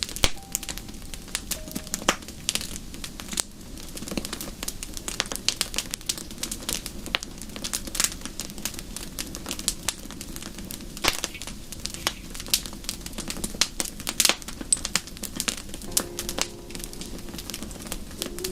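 Wood fire in a fireplace crackling, with irregular sharp pops over a steady low rush.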